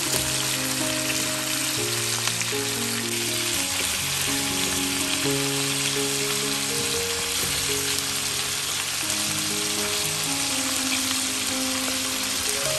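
Chicken drumsticks and thighs sizzling steadily as they fry in butter in a pan. Soft background music of slow, held notes plays under it.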